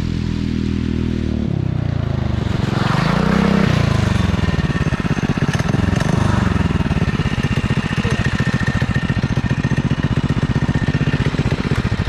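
Cyclekart's small engine running, with a swell in pitch about two to four seconds in, then settling into an even, quick putter at idle.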